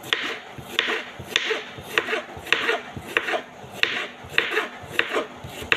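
Kitchen knife chopping a green vegetable on a wooden cutting board, one sharp knock of the blade on the board about twice a second.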